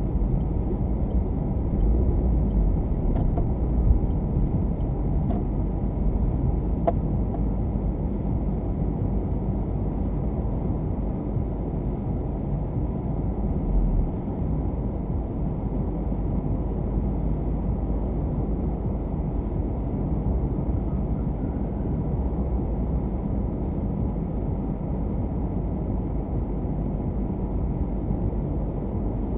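Steady low rumble of a car's engine and road noise, heard from inside the cabin through a dashcam microphone, with a few faint ticks in the first seven seconds.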